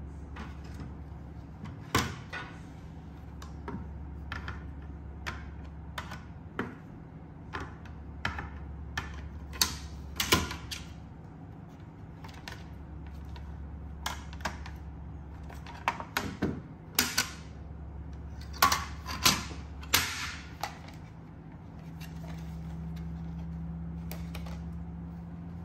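Black ABS plastic foldable laptop stand being tilted and folded by hand: a long run of sharp, irregular plastic clicks and knocks from its hinged plate and angle notches. Behind it is a steady low hum.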